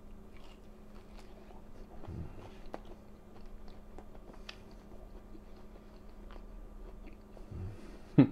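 A man chewing a mouthful of grilled marinated beef sirloin, with faint wet mouth clicks and two short low murmurs. A short, loud voice sound comes near the end.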